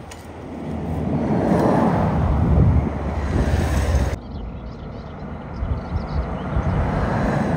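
Wind buffeting the microphone, a rushing noise that swells about a second in and drops off suddenly about four seconds in.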